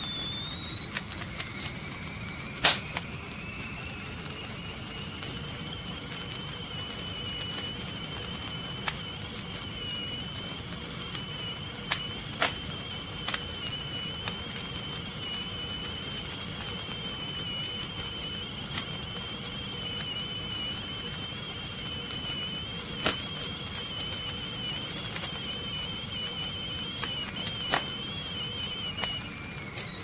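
Stovetop kettle whistling at the boil. A high whistle climbs in pitch over the first few seconds, holds steady, then drops away at the very end. A few sharp pops sound over the low rush of the gas flame.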